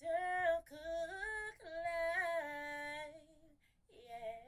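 A single high voice singing long held notes, unaccompanied: three phrases close together, a pause, then a fourth phrase starting near the end.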